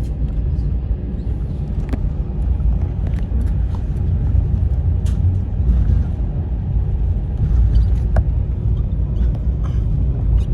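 Airbus A321 cabin noise heard from a passenger seat: a loud, steady low rumble of the airliner on the move, with a few light clicks and rattles from the cabin.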